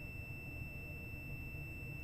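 Sanwa digital multimeter's continuity beeper sounding one steady high tone while its probes rest on two of a compressor's winding terminals: the beep means those two terminals are connected, so the winding between them is not open.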